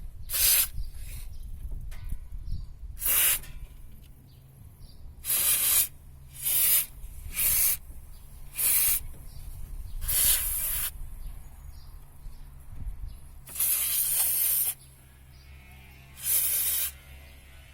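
Small aerosol can of silicone lubricant sprayed in about nine short hissing squirts of varying length onto the rubber of a car's right engine mount. The silicone is a quick, temporary cure for the mount's knocking.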